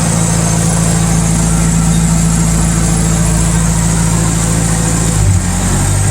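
Turbocharged Toyota 1NZ-FE inline-four engine running at steady revs, its pitch shifting slightly about five seconds in, then cutting off abruptly.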